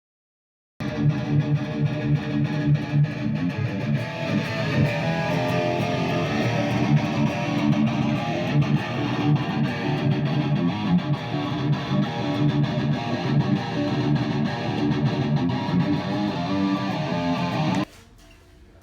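Guitar music, likely electric guitar, that cuts in suddenly about a second in and stops abruptly near the end.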